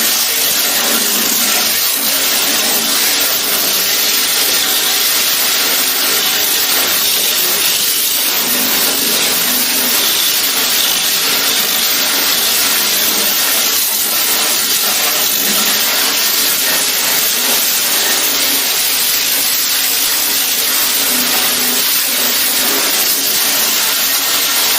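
Grinder running steadily against the steel body panels of a DKW Schnellaster van, grinding lightly to strip paint and rust and show up the high and low spots in the metal.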